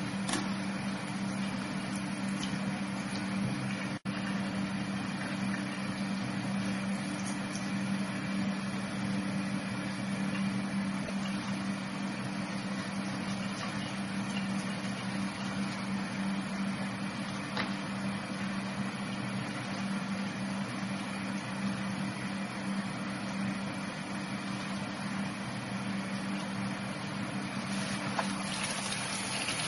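A steady machine-like hum: one constant low tone with a hiss behind it, unchanging throughout, cutting out for an instant about four seconds in.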